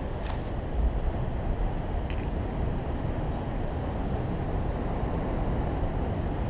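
Steady low rumble of wind and breaking sea surf, with no distinct events standing out.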